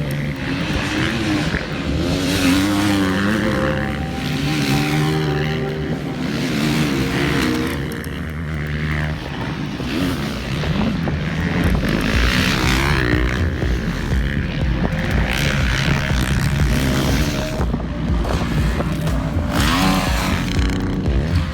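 Motocross bikes racing, their engines revving up and down through the gears with several bikes overlapping.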